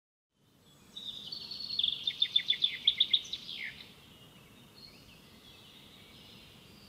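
Birds singing over a faint steady outdoor background, fading in after a moment of silence. About two seconds in comes a fast run of sharp repeated chirps, the loudest part, ending in a quick downward sweep, followed by quieter scattered calls.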